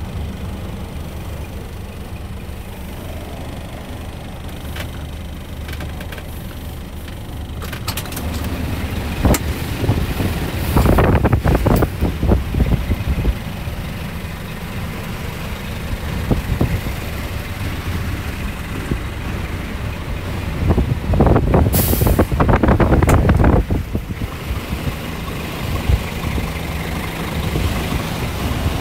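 Scania R480 truck's diesel engine idling steadily, heard from inside the cab. Two loud stretches of rumbling and knocking come about ten and twenty-one seconds in, with a brief sharp hiss near twenty-two seconds.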